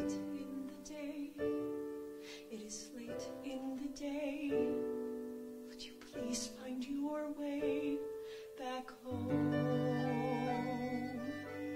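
A woman singing a slow ballad with vibrato on held notes, over soft piano accompaniment.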